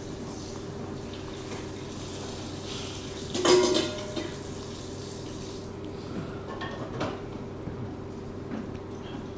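Steady room hum, broken about three and a half seconds in by one sharp clatter with a brief ring, like hard objects knocking together, then a couple of faint knocks near seven seconds.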